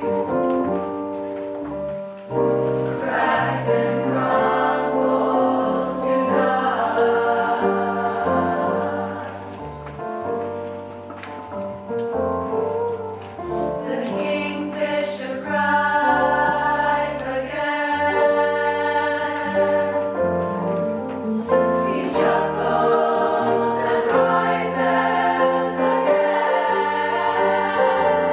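Choir singing a musical-theatre song in parts, with a softer passage about midway.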